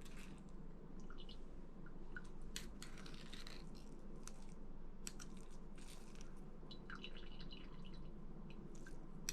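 Faint, soft wet squishing with scattered light clicks as a spoon presses cooked, rehydrated elderberries to squeeze out their juice.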